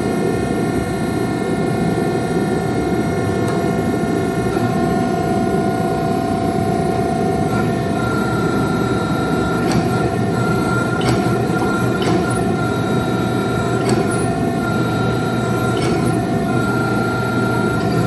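Workshop machinery running steadily, a loud low rumble with a constant whine over it, and a few light ticks in the second half.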